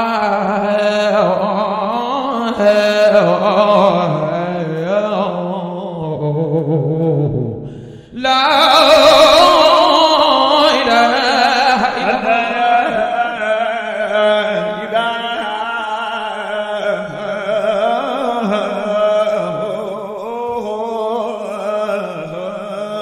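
A man's voice chanting religious praise poetry in long, melismatic sung lines. There is a short break about eight seconds in, after which the chant comes back louder.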